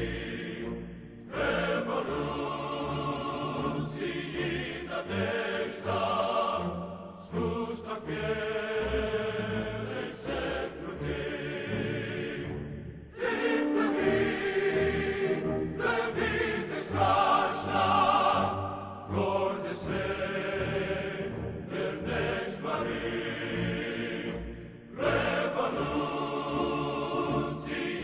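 Background music: a choir singing long, wavering held notes, with a few brief pauses between phrases.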